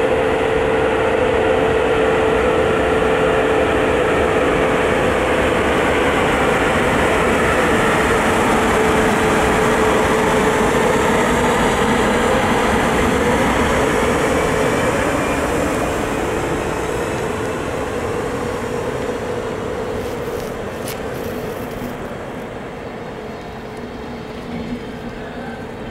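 Electric locomotive and its passenger coaches running past, with a steady whine from the locomotive over the noise of wheels on rails. The sound fades over the last ten seconds as the train pulls away.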